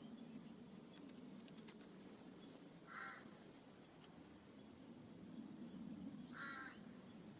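Two short, harsh cawing calls from a corvid, about three and a half seconds apart, one near the middle and one near the end.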